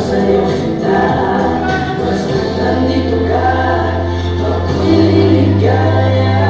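Dance music: a song with sung vocals over a steady bass line that comes in stronger about two and a half seconds in.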